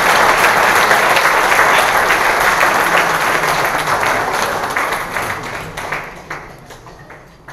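Audience applauding, dense and steady at first, then fading away over the last few seconds.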